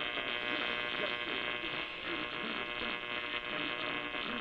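Weak, distant AM radio signal dominated by static and a steady electrical hum, with a faint voice barely coming through underneath.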